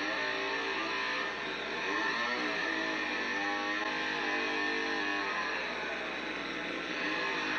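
Chainsaw engine running with a rough, buzzing drone, its pitch rising and falling as it is revved, heard from a horror film's soundtrack.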